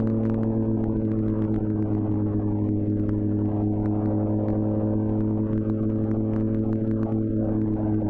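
2004 Honda CBR1000RR Fireblade's inline-four engine cruising at steady revs through its Jardine titanium exhaust, a constant even drone that neither rises nor falls.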